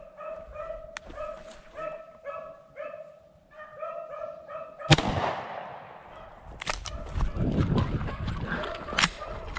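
Beagles baying on a rabbit's trail, a repeated chopped cry. About five seconds in comes a single loud shotgun shot, the hunter's long shot at the running rabbit, followed by scuffling noises.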